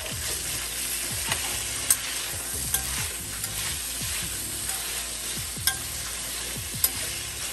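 Diced potatoes sizzling in oil in an enamelled pan while a metal spoon stirs them, with a sharp clink of the spoon against the pan every second or so.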